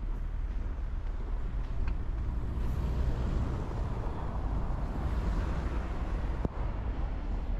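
A car passing on the street: an even tyre-and-engine noise swells over a few seconds and fades again. A steady low wind rumble on the microphone sits under it, and there is one sharp click near the end.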